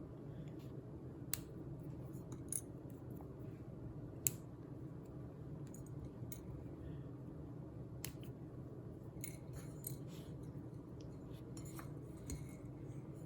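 Dry spaghetti being broken up by hand: scattered small sharp snaps and clicks, one every second or few, the loudest about four seconds in, over a faint steady low hum.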